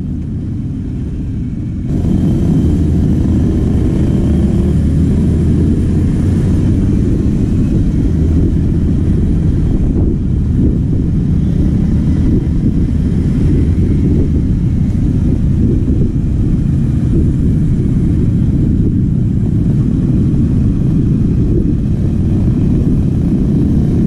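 Yamaha WR155R's single-cylinder four-stroke engine running under way, with wind rumbling over the camera microphone. The sound steps up in loudness about two seconds in and then holds steady.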